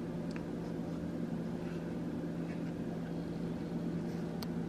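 A steady low hum at one fixed pitch, like a running kitchen appliance or electrical hum, with a faint click or two.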